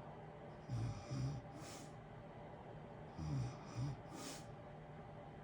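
A sleeping person snoring: two short low snores followed by a breathy hiss, heard twice about two and a half seconds apart, over the steady hiss of a room heater.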